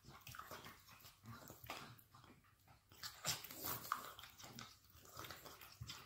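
A dog lying on its back gnawing a rubber chew toy: irregular wet chewing clicks and small mouth and nose noises.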